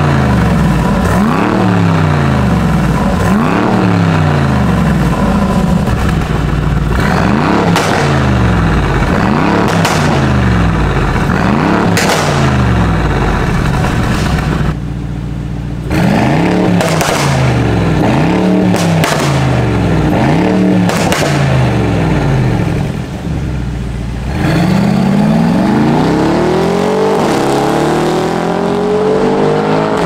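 Mercedes-AMG G63's twin-turbo V8 through a Fi Exhaust valvetronic system with catless downpipes, its exhaust valves closed in comfort mode, revved over and over, about one rev every two seconds. Near the end the engine climbs steadily through a long rising pull.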